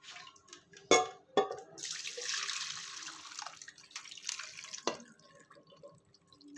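Chicken stock poured through a stainless steel mesh strainer into a glass bowl, splashing steadily for about two seconds as the broth is strained off its whole spices. A couple of sharp knocks come just before the pour, and another comes near the end.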